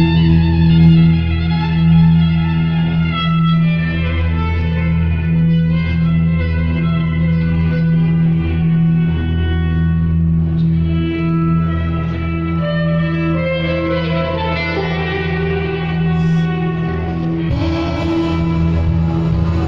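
Live band playing an instrumental passage: a bowed violin melody with electric guitar over a sustained low bass drone, amplified through the hall's PA with echo from the room. Near the end the sound thickens as more of the band, drums included, comes in.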